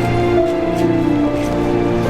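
Slow instrumental music with long held notes.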